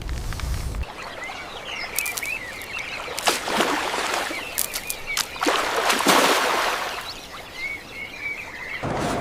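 Small birds twittering in short chirping calls, in two bouts, over two swells of rushing noise and scattered sharp clicks.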